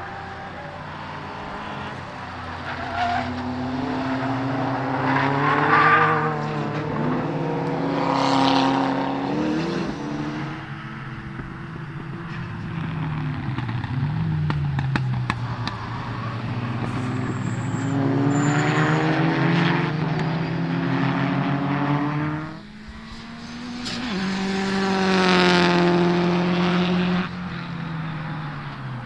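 Rally-style turbocharged cars running on a race circuit, engines revving up and dropping back through gear changes as they pass, with the loudest pass near the end.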